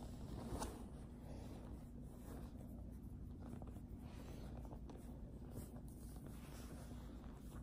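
Faint close-up rustling and rubbing, with a few soft scratchy strokes.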